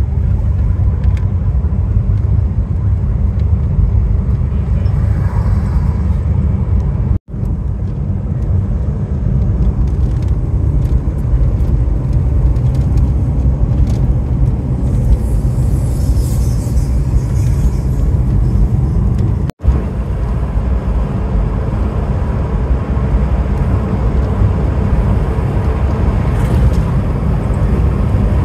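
Steady rumble of road and engine noise from a moving car, heavy in the low end; it drops out for an instant twice.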